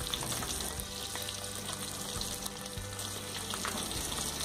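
Hot oil sizzling steadily around corn-tortilla potato quesadillas deep-frying in a pan, with a few light clicks of a spatula turning them.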